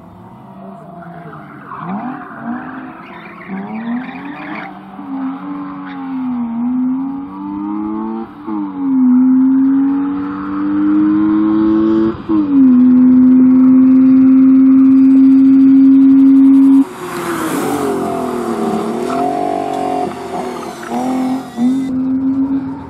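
BMW E36 rally car's engine revving up and down hard as it weaves between cones, with tyres squealing. In the middle the engine holds a loud, steady high note for about four seconds that breaks off suddenly, followed by a hissy rush of engine and tyre noise as the car comes close.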